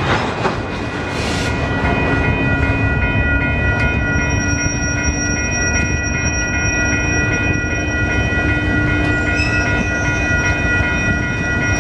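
Union Pacific GP60 diesel-electric locomotives running, their EMD 16-cylinder two-stroke engines making a steady low rumble, with several steady high-pitched tones held over it.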